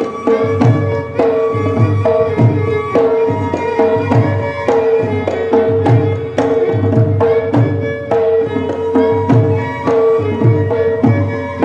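Music with a steady, repeating drumbeat under a held note.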